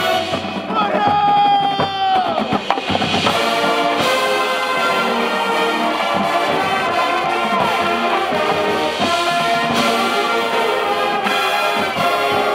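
High school marching band playing its field show: brass with percussion and front-ensemble instruments. A held high note bends down about two seconds in and dissolves into a flurry of sliding pitches, then the full band carries on.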